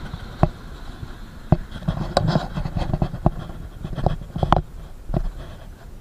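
Irregular sharp knocks and clicks, about seven of them, with some rubbing and scraping between, from hand tools and metal parts handled close by during a motorcycle puncture repair.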